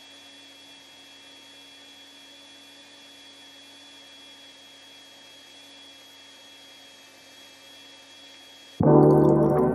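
Countertop blender running steadily while blending a smoothie, heard as a faint, even hum with a thin high whine. Piano-led background music starts abruptly near the end.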